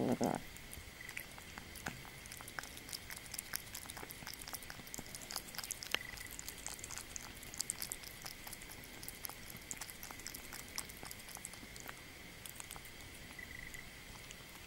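Black kitten eating boiled meat and egg from a ceramic bowl close to the microphone: a continuous, irregular run of small wet clicks from chewing and licking.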